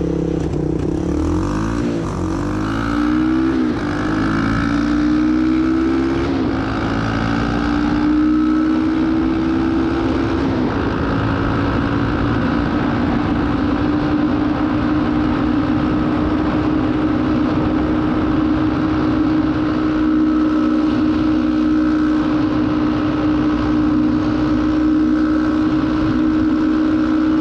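Honda Fourtrax 200SX ATV's single-cylinder four-stroke engine accelerating hard through a couple of quick gear changes. It then climbs more slowly and holds at a steady high pitch at full throttle near top speed.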